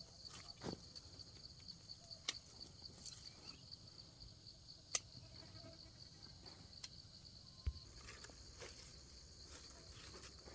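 Insects chirring steadily in a high, fast-pulsing trill, with a few scattered sharp clicks and knocks.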